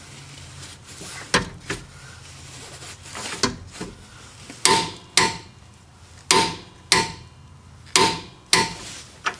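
Torque wrench and ratchet working the 18 mm nut and bolt of a rear shock's lower mount: about ten sharp metallic clicks with a short ring, several in pairs about half a second apart, as the nut is torqued down.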